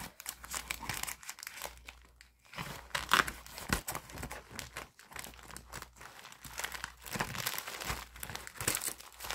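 Plastic mailer bag crinkling and rustling in irregular bursts as it is handled and cut open with scissors.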